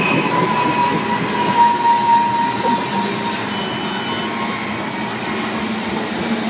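Coal train freight cars rolling along the rails with a steady noise, and a high wheel squeal for the first couple of seconds that then fades.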